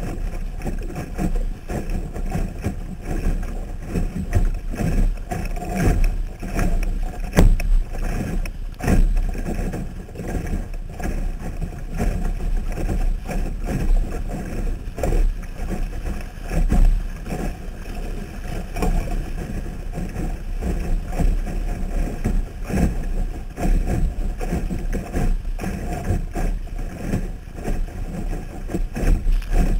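Muffled water sloshing and slapping against a Sunfish sailboat's hull under sail, with a steady low rumble and irregular knocks, picked up by a camera mounted on the boat.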